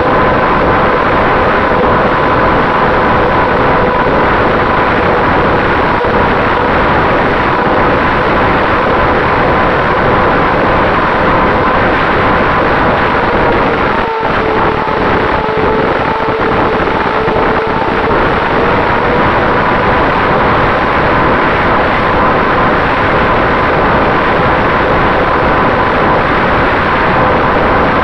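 Electric motor and propeller of a Finwing Traveler RC plane heard from its onboard camera in flight: a steady whine over loud wind rush. The pitch dips slightly about halfway through, just after a brief cut-out, then rises back.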